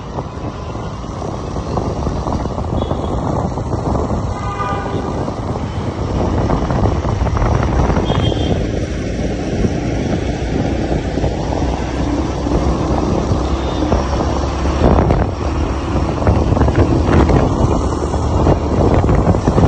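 Bajaj Pulsar motorcycle riding at speed: engine, tyre and road noise mixed with wind on the microphone, getting louder about six seconds in.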